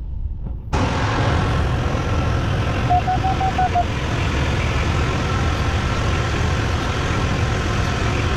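Steady cockpit noise of a motor glider flying with its propeller turning: engine and airflow noise with no break. About three seconds in, a short run of electronic beeps sounds.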